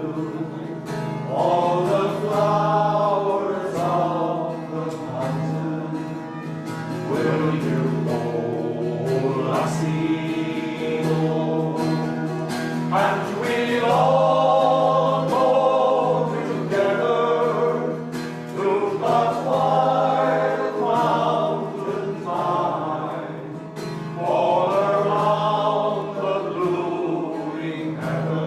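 A choir singing a slow song in long, sustained phrases over a steady low held note.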